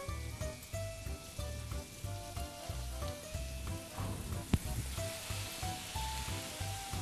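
Diced mixed vegetables and peppers scraped from a glass bowl into a hot oiled frying pan, sizzling, the sizzle growing louder after about five seconds. One sharp knock about four and a half seconds in, over background music with a steady beat.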